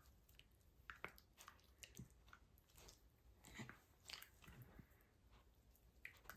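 Faint, scattered soft clicks and mouthing noises from miniature dachshunds play-biting each other.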